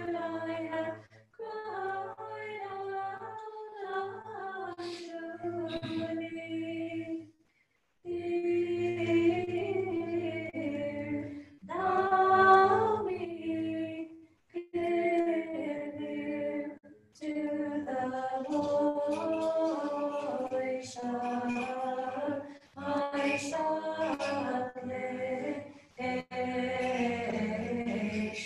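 Church choir singing an Orthodox vespers hymn a cappella, with women's voices among them, in held chant-like phrases with short pauses for breath between lines.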